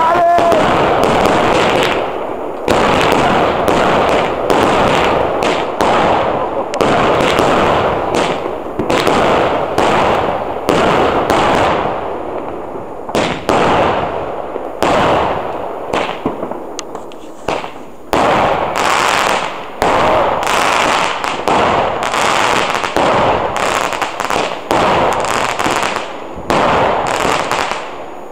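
Consumer firework batteries (Premier League and Pluton cakes lit together) firing in a dense, continuous volley of shots and crackling star bursts. The volley thins out for a few seconds about halfway through, then picks up again.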